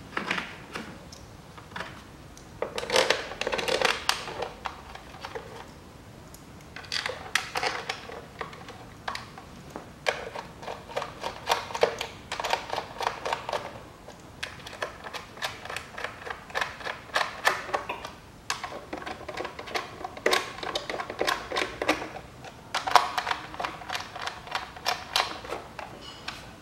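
Ratchet wrench clicking in about six short runs of rapid clicks as the bolts holding down the engine's top cover are tightened.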